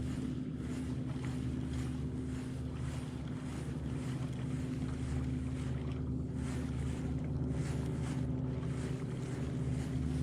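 Boat motor running steadily with an even hum, and wind buffeting the microphone.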